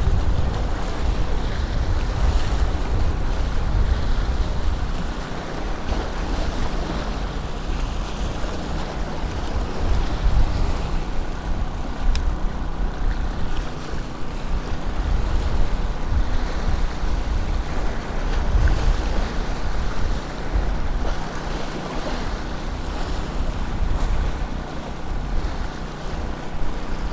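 Gulf surf washing and splashing against granite jetty rocks, with wind buffeting the microphone in low rumbles.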